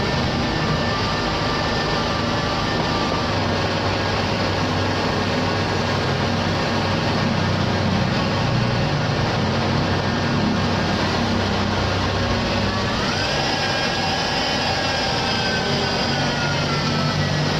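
Honda Accord 3.5-litre V6 engine running steadily, with a whine that rises about two-thirds of the way through and then slowly falls away, as with a rev.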